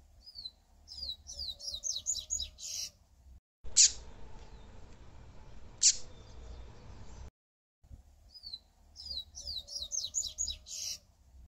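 A Sporophila seedeater (papa-capim) singing. Its song phrase is a quick run of high, down-slurred whistled notes that speeds up and ends in a buzzy note. The phrase is given twice, and between the two are two sharp, short call notes.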